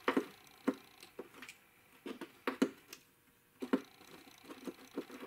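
Irregular light clicks and taps of a small metal bracket and bolt being handled and fitted by hand while mounting a vacuum pump, about a dozen short knocks at uneven spacing.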